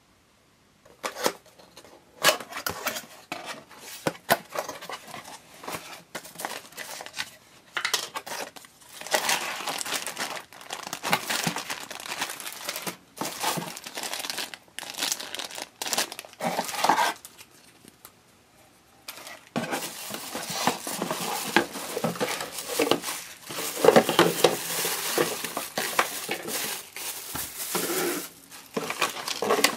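Clear plastic zip bags and bubble wrap crinkling and a cardboard box being opened and handled, in irregular rustling bursts with small clicks and knocks. It begins about a second in and pauses briefly a little past halfway.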